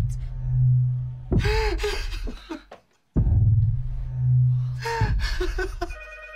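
A man's hysterical cries, heard twice, over a low droning hum that swells and fades. A telephone starts ringing near the end.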